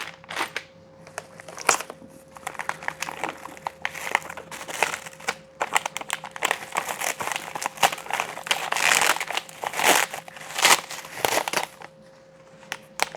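Plastic packaging crinkling and rustling as it is handled and unwrapped, with irregular crackles and small knocks, busiest in the middle and dying down near the end.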